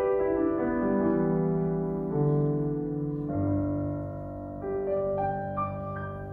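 Grand piano played solo: a falling run of notes ends early on and gives way to slow, held chords, with a deep bass note coming in about three seconds in and a few higher notes above it near the end.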